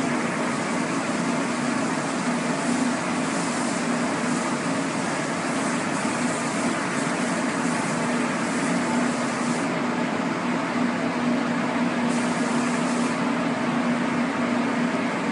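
A motor-driven machine running steadily: a constant hum over an even rush of air noise. The highest part of the hiss drops away about two-thirds of the way through, returns for about a second, then drops away again.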